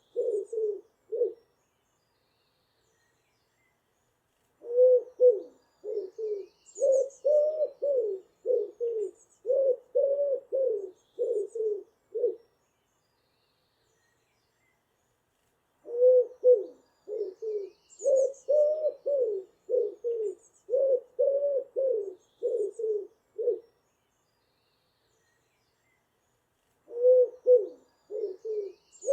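Pigeon cooing in long runs of low, throaty coos, each run several seconds long with a pause of a few seconds between runs. Faint high chirps of other birds come through now and then.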